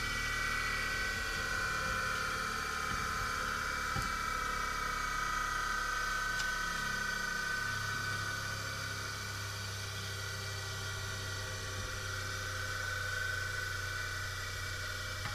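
Bench grinder's capacitor induction motor running steadily with an even electric hum and whine, now running after its capacitor was replaced.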